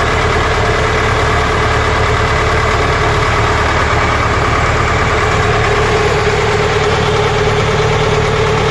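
Fishing boat's engine running steadily under way, a loud constant drone with a steady mid-pitched hum, over water rushing along the wooden hull.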